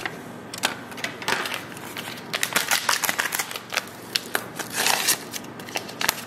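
A flexible powder packet crinkling and crackling as it is handled and torn open over a mixing bowl: a dense, irregular run of sharp crackles.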